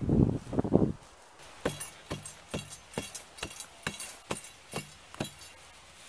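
Steel tamping bar ramming backfill soil around a newly planted wooden pole, sharp clinking strikes about two a second, starting a little over a second in. The first second holds a brief louder rumble.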